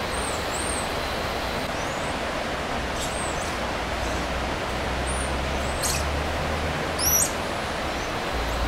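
Jungle ambience: a steady rushing hiss with a low rumble beneath, and a scatter of short, high-pitched chirps, the loudest about seven seconds in.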